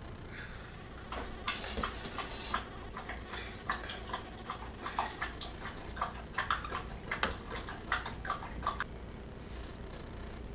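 Irregular light knocks and clinks as raw chicken breasts are handled and moved about on a metal baking tray, with kitchenware knocking now and then.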